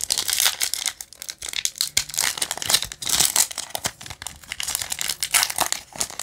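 Foil wrapper of a Yu-Gi-Oh! Lightning Overdrive booster pack being torn open and crinkled by hand: a dense, irregular run of sharp crackles and tearing.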